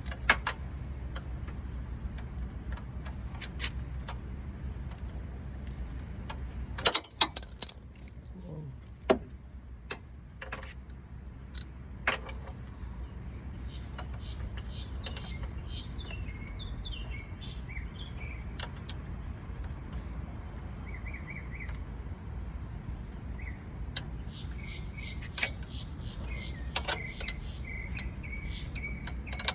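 Scattered sharp metallic clicks and clinks of hand tools working on the van's engine, with a quick cluster about seven seconds in, over a steady low hum. Birds chirp in the background in the second half.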